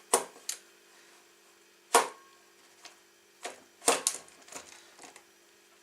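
Sharp clicks and knocks, about seven spread irregularly, the loudest about two seconds in: the latched coupling of a brush cutter's split drive shaft being tugged and handled while it stays locked. A faint steady hum underneath.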